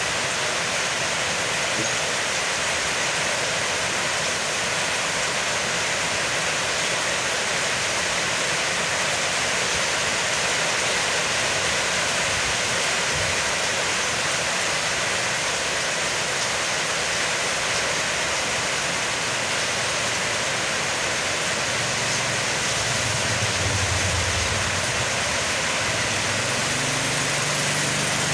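Heavy rain falling, a steady even hiss. A low hum comes in near the end.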